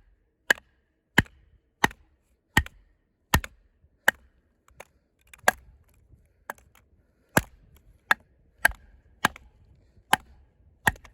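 A steady run of about fifteen sharp wooden blows, roughly one every two-thirds of a second, as a thick-bladed combat knife is hammered through a log on a stump.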